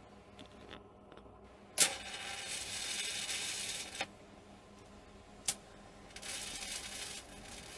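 TIG welding arc on a steel box section: a sharp crack as the arc strikes about two seconds in, then a steady high hiss for about two seconds before it stops. A second crack comes about halfway through, and the arc hisses again near the end.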